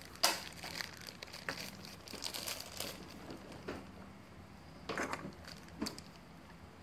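Thin plastic bag crinkling and small plastic capsule parts clicking as they are handled, in scattered short bursts with a sharper click just after the start.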